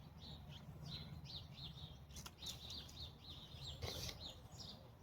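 Bird chirping faintly, a quick run of short high chirps, several a second, repeating steadily. A couple of brief soft clicks or rustles are heard around the middle.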